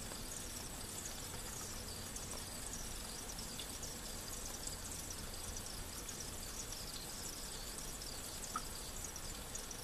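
Onion wedges frying in olive oil in a pan: a steady sizzle with a couple of small pops.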